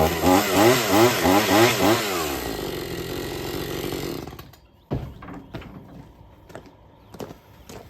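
Gas chainsaw revved up and down about four times, then held at a steady run before it stops about four seconds in. A few scattered knocks and clicks follow.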